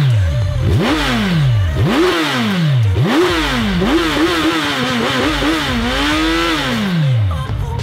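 A 2018 Kawasaki Z1000's inline-four engine on its stock exhaust, revved in repeated throttle blips about once a second. The revs are then held briefly and wavering before dropping back toward idle near the end.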